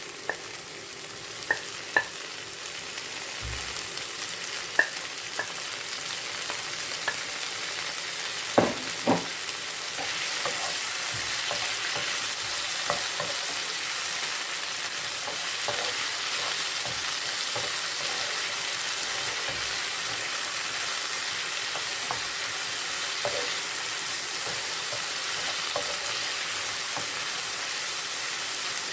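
Chopped onions, garlic and bell peppers sizzling in hot oil in a pot, a steady hiss that gets a little louder about ten seconds in. A utensil knocks against the pot a few times as they are stirred, loudest twice about nine seconds in.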